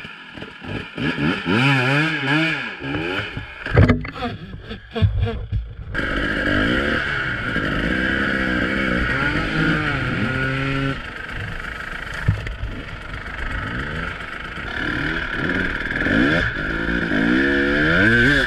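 Dirt bike engine revving, its pitch rising and falling again and again as the throttle is worked, with a sharp loud knock about four seconds in.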